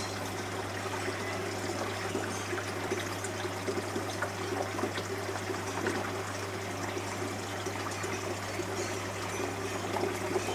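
Aquarium filter running: water trickling steadily over a constant low hum, with a few faint ticks.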